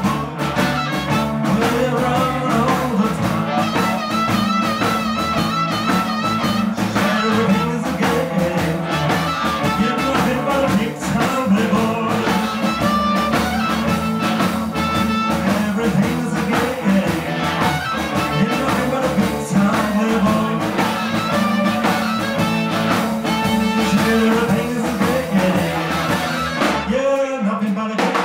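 Live blues band playing an instrumental passage: amplified harmonica over hollow-body electric guitar, electric bass and drum kit, in a steady shuffle.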